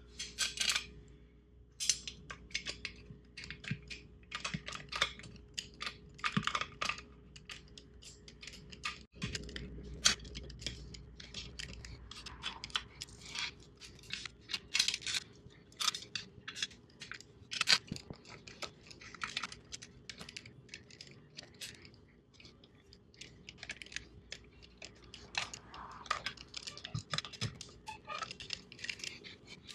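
Hand tools working on engine-cover bolts: irregular sharp metallic clicks and clinks.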